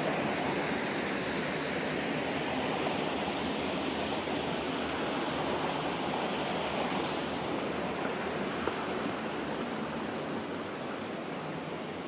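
Steady rush of water from river rapids, even and unbroken, easing off slightly toward the end.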